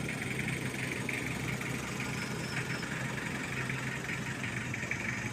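A steady, unbroken low engine hum, like a vehicle idling, with a steady higher hiss over it.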